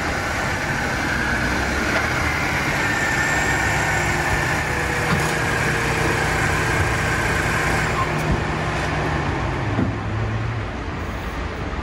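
Dacia Duster's engine running as the car rolls up and stops, with a steady low engine note that cuts out about ten and a half seconds in.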